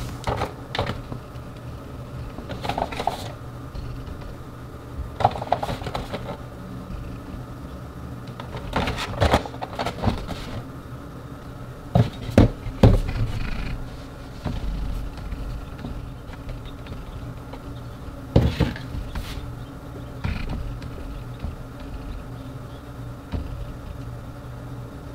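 Hands handling a cardboard light-stick box on a wooden table: scattered knocks, taps and scrapes as it is turned over and set down, over a steady low hum. Three sharp knocks come close together about halfway through.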